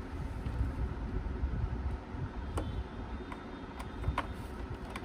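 Handling noise and a few light clicks as a RAM module is pressed into a desktop motherboard's memory slot, over a low steady rumble.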